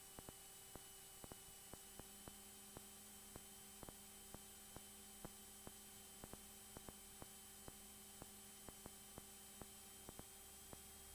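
Near silence: faint electrical hum with a few steady tones and soft irregular clicks, about three a second, on the aircraft's headset intercom audio line, with no engine or propeller sound coming through.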